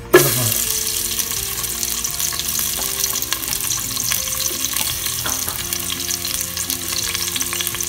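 Sliced white onion dropped into hot oil, with a sudden loud sizzle as it lands, then steady sizzling and crackling as it fries.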